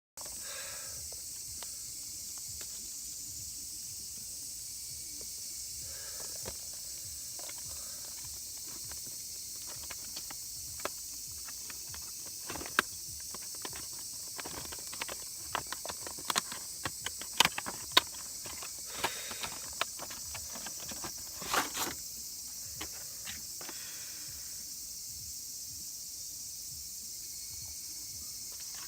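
A steady high-pitched buzz of summer insects, with scattered light clicks and knocks, most of them in the middle of the stretch.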